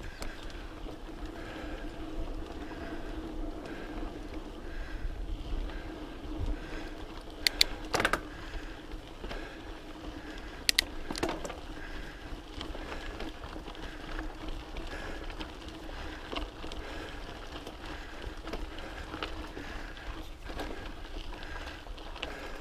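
Full-suspension mountain bike rolling down a loose dirt and gravel trail: a steady rolling noise with a low hum, and a few sharp clacks about eight and eleven seconds in as the bike rattles over rocks.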